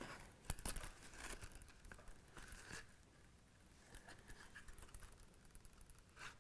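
Faint rustling of a leather case and waxed thread being handled during hand saddle stitching, with a few light ticks.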